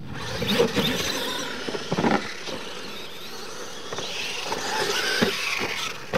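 Radio-controlled monster trucks racing across a dirt track, their motors revving and tyres churning the dirt, with a few sharp thumps as the trucks land off the ramps.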